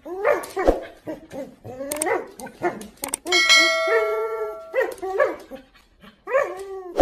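Siberian husky making a string of pitched, bending yowls and grumbles while playing tug-of-war with a rope toy. A bell-like chime rings for about a second and a half, a little past three seconds in.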